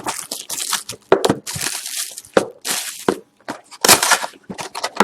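A sealed box of hockey trading cards being torn open by hand: irregular crackling and tearing of its plastic wrap and cardboard, with many short, sharp crackles.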